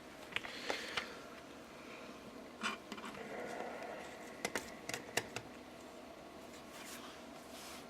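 Light, irregular clicks and taps of capacitance-meter test probes being placed on capacitor leads in an old valve radio chassis, a few sharp ones close together about four to five seconds in.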